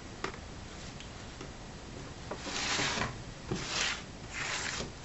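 Handling of a disassembled laptop screen assembly on a wooden desk: a few light clicks, then three short scraping rubs in the second half, each under a second long.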